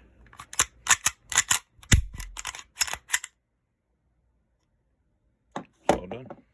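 Canik TP9SF pistol being reassembled: a quick series of sharp metal clicks and clacks as the barrel, recoil spring and slide go back onto the frame, lasting about three seconds.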